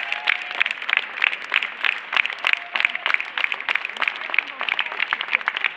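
Audience applauding, a steady patter of many sharp hand claps.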